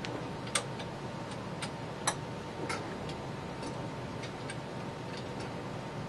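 Scattered small metal clicks and taps from the dies of a Rawley Standard hand grommet press being swapped, the cutting dies taken out and the setting dies fitted; the sharpest click comes about two seconds in.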